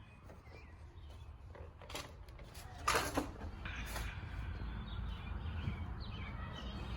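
Birds chirping over a low, steady rumble, with a sharp clatter about three seconds in.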